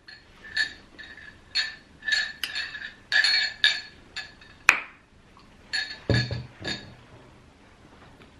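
Light glass clinks, about ten short taps in the first seven seconds, with a sharp click near the middle and a dull thump about six seconds in.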